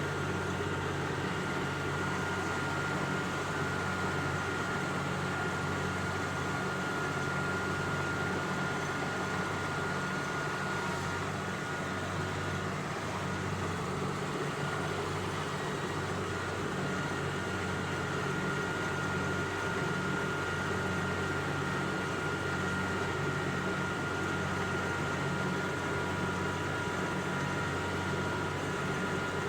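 An engine running steadily under constant load, its low hum carrying a constant high whine above it.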